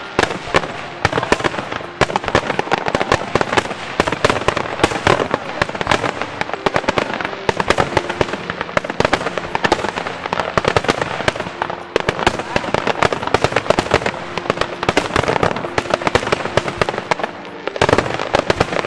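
Aerial fireworks shells bursting in a dense, continuous barrage, with bangs following one another several times a second and overlapping crackle: the rapid fire of a fireworks finale.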